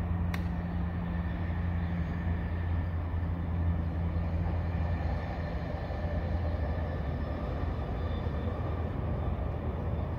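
Steady low rumble of outdoor background noise, with one sharp click about a third of a second in.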